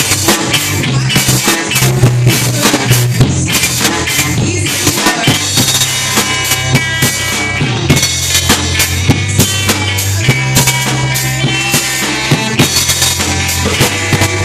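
Ska band playing live, the drum kit to the fore with steady sharp hits, over a low bass line with electric guitar and trombone.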